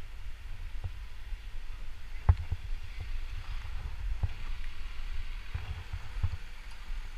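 Steady low rumble of a vehicle rolling along a street, with a handful of short sharp knocks, the loudest about two seconds in.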